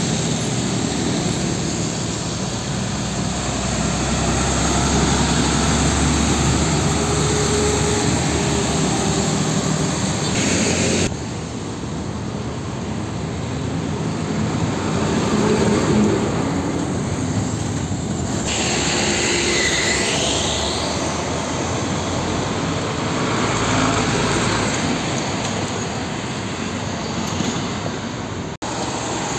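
Roadside traffic as Nissan Diesel trucks drive past with motorcycles and cars, their diesel engines running and tyres rolling on wet tarmac. The sound changes abruptly three times as one passing truck gives way to the next.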